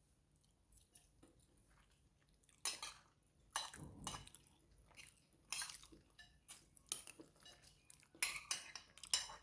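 Cutlery clinking and scraping against dishes in irregular, sharp strokes, starting after about two and a half seconds.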